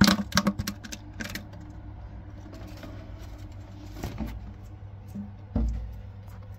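Handling noise: a quick run of sharp clicks and taps in the first second and a half, then a soft bump and a heavier dull thump near the end, over a steady low hum.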